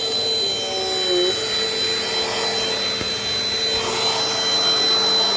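Vintage Dirt Devil Dynamite Plus vacuum cleaner running steadily, its motor giving a high whine over a broad rushing air noise. A lower tone in the motor sound wavers briefly near the start, then holds steady.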